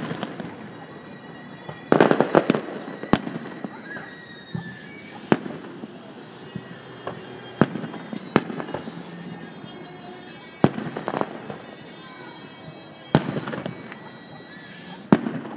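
Aerial firework shells bursting, a sharp boom every second or two, with a quick run of several reports about two seconds in.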